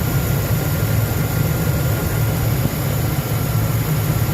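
2004 Lincoln Navigator's 5.4-litre V8 running steadily at a constant speed while warming up to bleed air from the cooling system after a coolant hose replacement, with a steady rushing hiss over the low engine hum.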